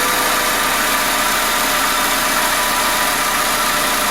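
Hyundai Tucson's 2.0-litre G4GC petrol four-cylinder running steadily at idle, its CVVT cam phaser replaced, without the diesel-like clatter the faulty phaser gave.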